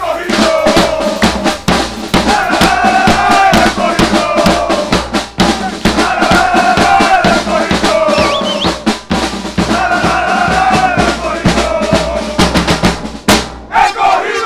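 Fan percussion band of bass drums, snare drums and cymbals playing a loud, fast, dense beat, with a melody line coming in short repeated phrases over the drumming.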